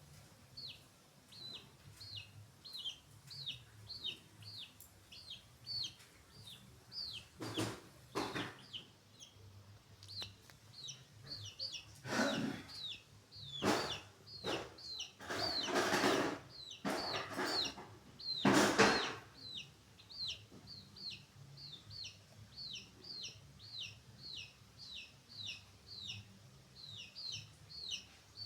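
Free-range chickens: a steady run of short, high, falling peeps, about two a second, with several louder noisy bursts around the middle.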